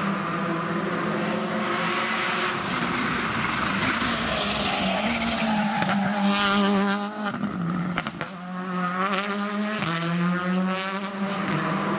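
Škoda Fabia R5 rally car engine revving hard as it passes, its pitch climbing and dropping repeatedly through the gears, with a few sharp cracks around the middle and near the end.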